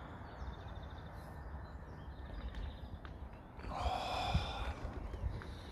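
Steady low rumble of road traffic from the flyover, with a brief breathy vocal sound, like a sigh, about four seconds in.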